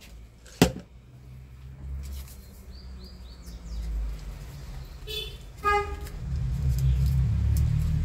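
Passing street traffic: a vehicle's low engine rumble that grows louder in the second half, with two short horn toots about five seconds in. One sharp click sounds near the start.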